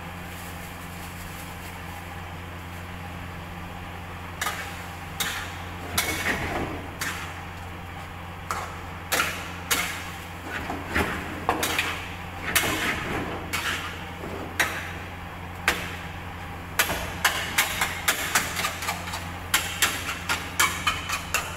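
A metal spatula scraping and clanking against a steel wok as cubes of meat are stir-fried over a gas flame. The clanks are irregular, starting about four seconds in and coming faster toward the end, over a steady low hum.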